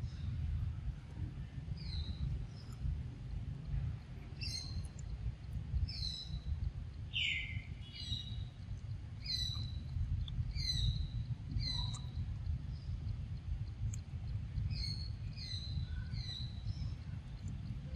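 A bird calling repeatedly, short high notes that slide downward, coming about once a second in an irregular series over a steady low rumble.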